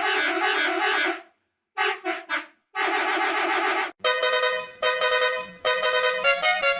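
A bus horn sound effect played in a rapid series of edited variations. First comes a wavering brassy tone, then a few short blasts and a held tone. From about four seconds in, a musical horn plays a stepping melody of clear notes in short cut pieces.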